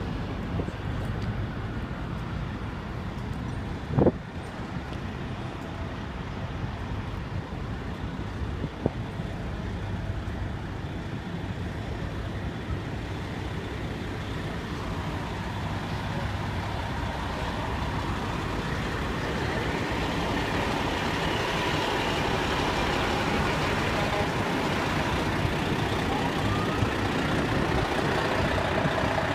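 Heavy vehicle engines running, with street traffic noise that grows louder in the second half. There is a sharp knock about four seconds in.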